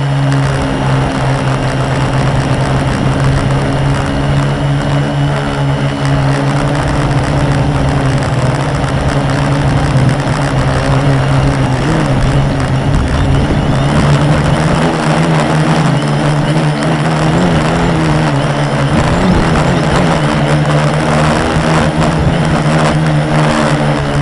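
Quadcopter's four Multistar 2212 920kv brushless motors spinning 10x4.5 propellers in flight, heard close from the onboard camera: a loud, steady buzzing hum with a hiss over it. Its pitch wavers midway as the throttle changes.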